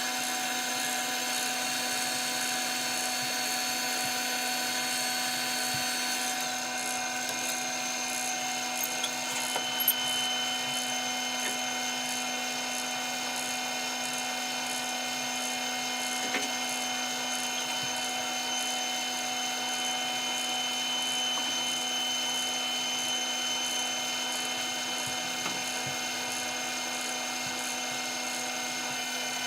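Wood lathe's electric motor running at a steady speed, a high, even whine, with a few light ticks about ten seconds in.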